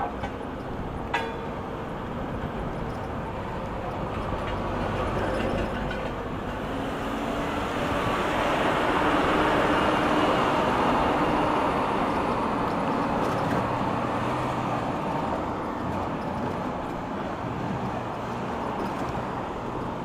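Steady road traffic heard from a moving e-bike. A bus passes close alongside, so the traffic noise swells to its loudest about halfway through and then fades. There is one sharp click about a second in.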